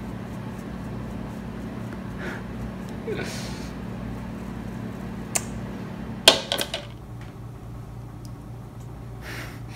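Soft tapping of a fine-mesh sieve as flour is sifted, over a steady low hum. A few sharp clinks of kitchen utensils come about six seconds in.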